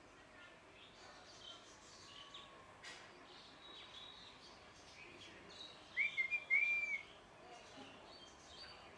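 A pet ringneck parrot gives two short, loud whistled calls about six seconds in, each rising then holding. Faint scattered chirps run under it.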